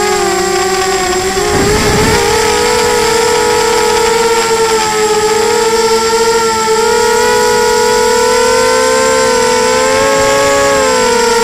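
Wasp 280 FPV drone's electric motors and propellers whining steadily in flight, heard from the camera on board. The pitch wavers slightly and rises a little near the end, with a brief low rumble about one and a half seconds in.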